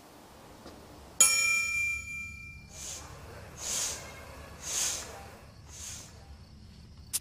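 A single metallic clang that rings on for about a second, followed by four soft swishing strokes about a second apart, and a quick run of clicks at the very end.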